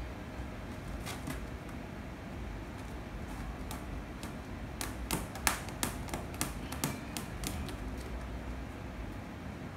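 Irregular light clicks and taps of kittens moving on and in a wire cage, bunched into a quick flurry in the middle, over a steady low room hum.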